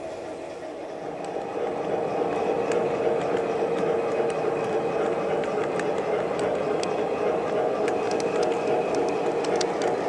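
MTH Premier O-gauge passenger cars rolling along the track with a steady wheel rumble that grows louder about a second and a half in. Light sharp clicks of the wheels over rail joints sound throughout.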